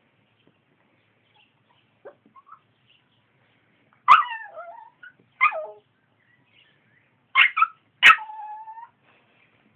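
A puppy yipping and whimpering at a cat: about five short, high calls that fall in pitch, the loudest about 4 and 8 seconds in, the last one drawn out.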